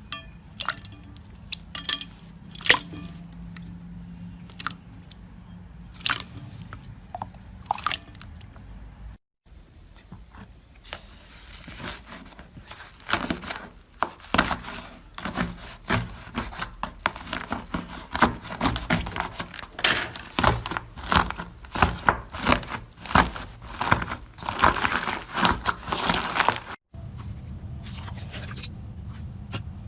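Slime being squeezed and worked by hand, making sharp wet clicks and pops. They come scattered at first, then thicken into a dense run of crackling pops through the middle, which stops suddenly near the end.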